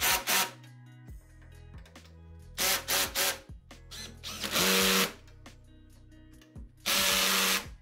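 Greenworks cordless drill/driver running in several short bursts, driving M6 screws to fasten the table supports. The last bursts are longer and steady, with a motor whine.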